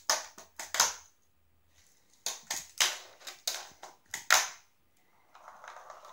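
Fingerboard popped and landing on a wooden floor: a series of sharp plastic-and-wheel clacks in small quick groups as the trick is tried again and again.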